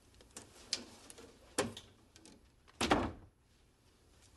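A few dull thumps about a second apart, the loudest near three seconds in, typical of a wooden interior door being shut.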